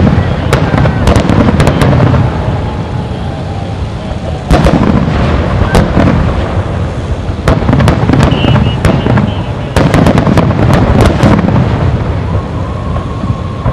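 Aerial fireworks shells bursting in quick succession: deep booms overlapping with sharp cracks and crackling. The heaviest booms hit at the start, about four and a half seconds in, and again near ten seconds.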